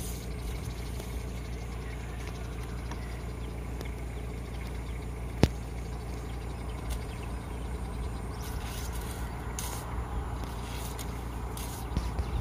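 Vehicle engine idling steadily as a low rumble, with one sharp click about five and a half seconds in.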